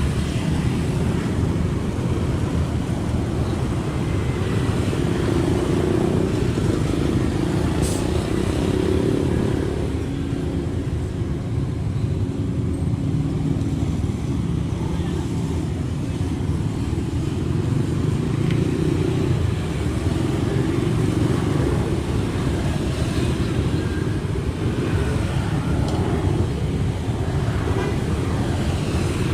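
Kobelco SK75 excavator's diesel engine running steadily under working load, its pitch shifting a little as the hydraulics work, with one sharp knock about eight seconds in.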